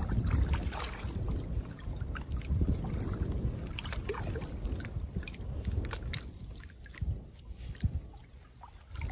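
Water sloshing and trickling around a small raft of plastic drums and wooden planks, with scattered light knocks and clicks as a cast net and its rope are handled.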